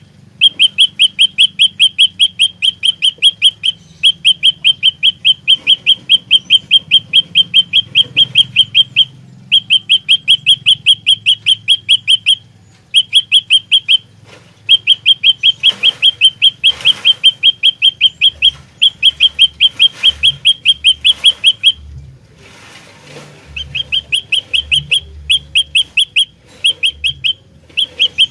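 Prenjak lumut, a tailorbird, singing fast runs of sharp, evenly repeated chirps, about eight a second. The runs last one to five seconds and are broken by short pauses.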